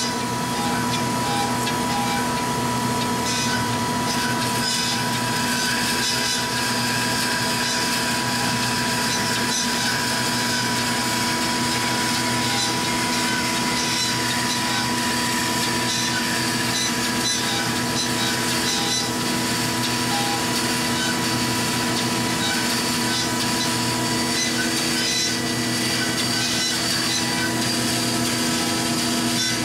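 Marvel 15A9 automatic horizontal band saw running in its automatic cycle, the blade cutting steadily down through bar stock. It makes a constant machine hum with a steady whine over a high hiss, and its tone shifts slightly about eleven seconds in.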